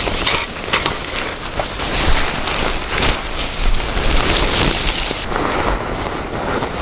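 Strong gusty wind buffeting the microphone, with repeated short flapping and rustling of tarp fabric as a camping tarp is taken down in the gusts.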